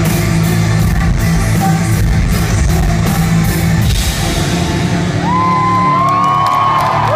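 Live rock band with drums, cymbals and guitars playing the last bars of a song. The music stops about four seconds in, and the crowd cheers with high whoops and yells.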